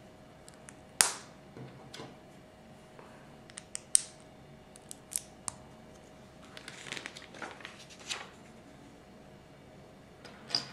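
Small plastic Lego pieces being handled and pressed together by hand: a few sharp, separate clicks with a stretch of softer rattling and tapping in between.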